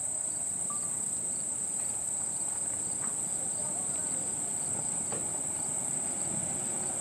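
Steady, high-pitched insect chorus of crickets, with the low rumble of approaching motorcycles underneath that builds slightly toward the end.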